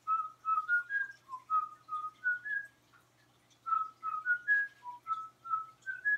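A man whistling a short tune up at a pet cockatiel: two phrases of short, clear notes stepping up and down in pitch, with a pause of about a second between them.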